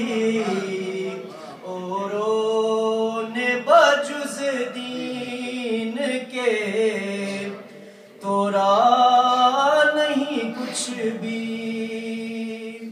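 A man's unaccompanied voice singing a manqabat in long, drawn-out melismatic notes, the pitch sliding and bending between held tones. There is a short pause for breath about eight seconds in before the next phrase.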